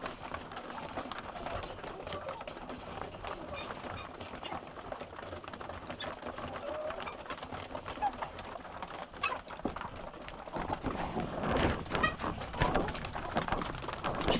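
A flock of caged laying hens clucking and calling while they eat, with scattered ticks and taps, getting louder about eleven seconds in.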